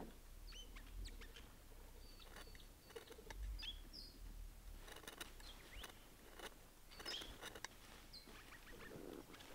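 Several birds calling faintly with short chirps and whistles, over a low rumble, with a few sharp clicks.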